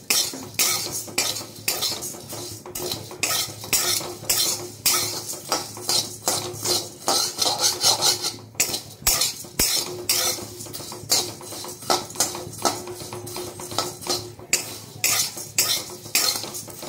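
A spatula stirring and scraping flattened rice (chire) in a metal pan, with quick repeated scrapes, a few a second, and the dry flakes rattling against the pan. The flakes are being roasted with constant stirring until crisp, so that they do not scorch on the bottom.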